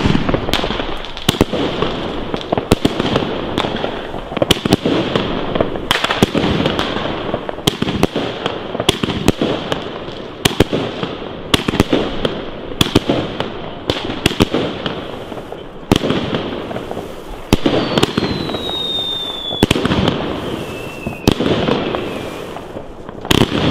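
Funke 'Kamuro Variations' firework battery firing its shots in steady succession, one every half-second to second, each with a sharp report and a hissing, crackling gold-willow burst. A falling whistle tone sounds about three-quarters of the way through.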